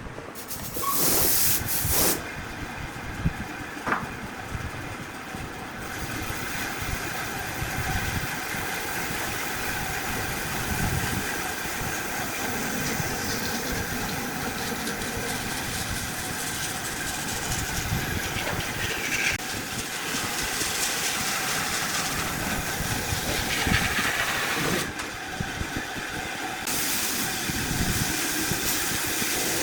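Wood lathe running steadily, with the hiss of a tool cutting into the spinning wood; the sound shifts briefly about a second in and again about six and twenty-five seconds in.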